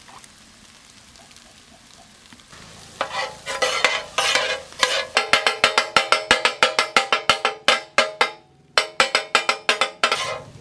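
Two flat metal spatulas chopping and scraping a scrambled egg fry in a large metal pan, making a quick run of sharp metal clacks several times a second. The clacks start about three seconds in and pause briefly near the end before going on.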